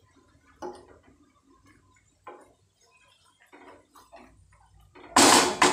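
A spatula stirring thick, watery cowpea curry in a non-stick kadhai, with soft scrapes and wet clicks about once a second, then a loud clatter of the spatula against the pan about five seconds in.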